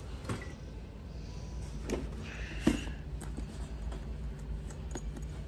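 A few light knocks and clicks of test meters and tools being handled in a toolbox drawer, the sharpest one about two and a half seconds in, over a steady low hum.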